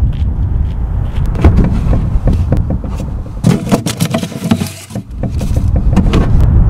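Wind rumbling on the microphone, with scattered clicks and scrapes as a roadside mailbox is opened and mail is pulled out; the rumble drops away for a moment midway.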